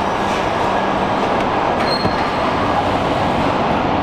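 Steady industrial din of a car assembly line, machinery running without a clear rhythm. A brief faint high tone sounds about halfway through.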